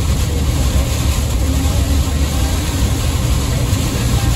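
Van driving through heavy rain, heard from inside the cabin: a steady low road-and-engine rumble under the even hiss of rain and tyre spray.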